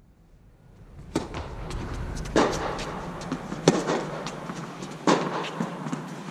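Tennis balls struck by rackets in a rally: sharp pops about every second and a quarter, beginning about a second in after a near-silent start, with lighter ticks of bounces and footsteps between.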